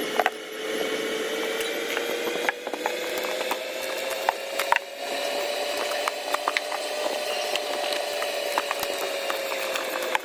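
A small electric motor running steadily at high speed with a whine, rising a little in pitch mid-way and dropping slightly near the end, with scattered clicks and knocks.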